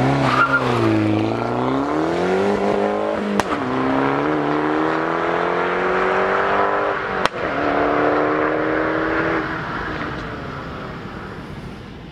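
Abarth Punto Evo's 1.4 MultiAir turbo four-cylinder, Stage 1 remapped and fitted with a remote-controlled valved exhaust, accelerating hard away. Its note climbs and drops at two upshifts, each with a short sharp crack, then fades with distance.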